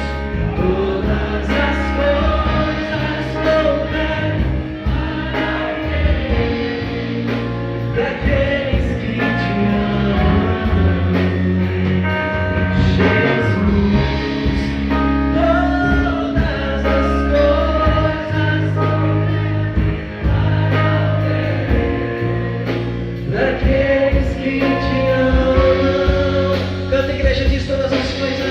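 Gospel band music with sung vocals, played continuously over a steady bass line.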